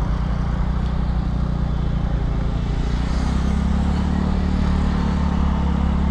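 TVS Ntorq 125 scooter's single-cylinder four-stroke engine running under way, with wind and road noise; its note rises a little about halfway through. It is running on the last of a measured one litre of petrol and is close to running dry.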